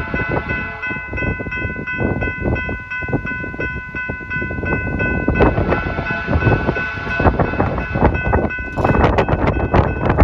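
BNSF freight train passing: a heavy rumble with frequent knocks and clatter from the cars, wind buffeting the microphone, and steady high tones ringing over it. Near the end the clatter grows louder.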